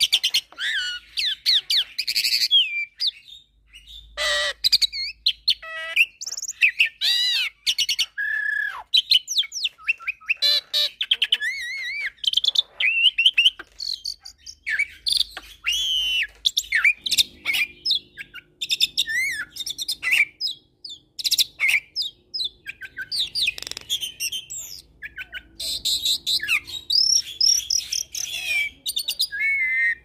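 Jalak hybrid, a cross of the Nias hill myna and the Asian pied starling, singing a fast, varied song of whistles, chirps and gliding notes, with brief pauses between phrases.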